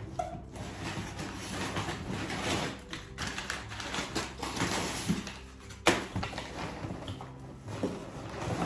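Crumpled brown kraft packing paper rustling and crackling as it is pulled by hand out of a cardboard box, with a sharp crinkle about six seconds in.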